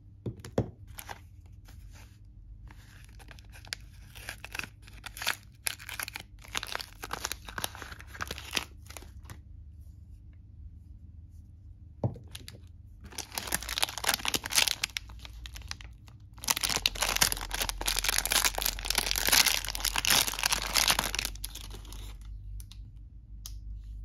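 Soap packaging being torn open and crinkled by hand, loudest in two long bursts of rustling in the second half, with a few sharp knocks of soap bars being picked up and set down earlier on.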